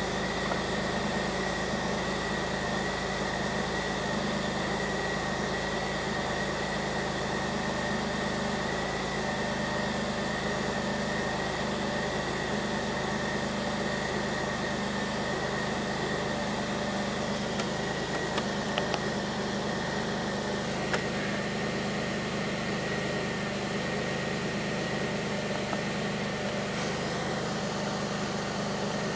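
2002 Pontiac Grand Prix's 3800 V6 idling steadily, with a steady high whine above the engine note and a few light ticks about two-thirds of the way in. The owner describes this engine's idle as rough and bogging.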